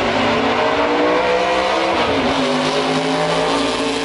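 Racing car engine running loud, its pitch dropping a little about two seconds in and then holding steady.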